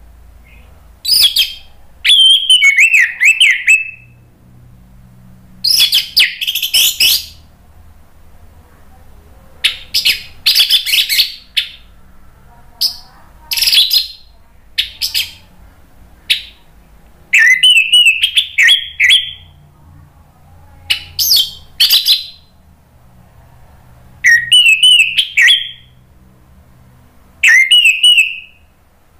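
Orange-headed thrush singing: about a dozen loud, short phrases of warbled and whistled notes, each a second or two long, with pauses of a second or two between them.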